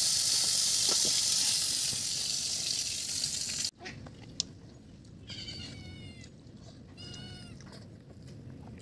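Whole fish frying in hot oil in a wok, a steady loud sizzle that cuts off suddenly about three and a half seconds in. After that it is much quieter, and near the end an animal calls twice in short, high, wavering cries.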